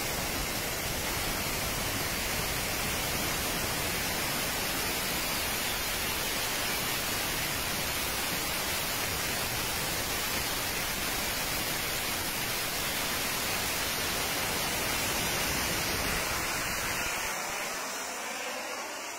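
Jet turbines of a Zapata Flyboard Air running, a steady even hiss with no break. Near the end it grows fainter and thinner.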